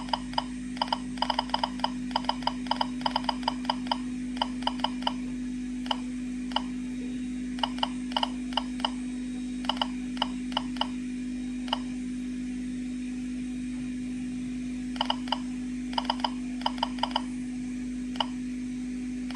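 Geiger-counter dosimeter sounding each detected count as a short beep, at random, irregular intervals: bunches of several a second, then sparser, with a lull of a few seconds past the middle. The counts come from a radioactive sample held a short distance from the detector. A steady low hum runs underneath.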